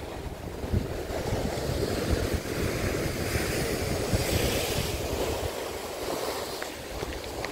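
Strong wind buffeting the microphone over the rush of choppy sea waves, with a wave washing in more loudly a few seconds in.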